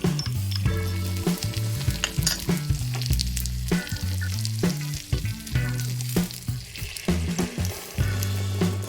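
Food sizzling as it fries in a miniature pan, with stirring that sets off scattered small clicks. Background music with a stepping bass line plays under it.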